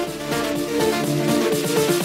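Electronic intro music with synthesizer tones.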